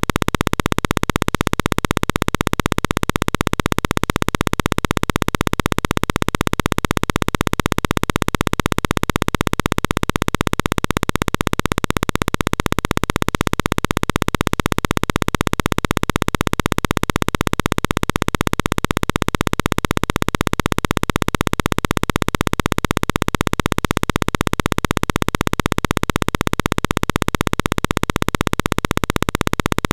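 A steady, unchanging buzzing noise with a fast flutter, at an even level throughout.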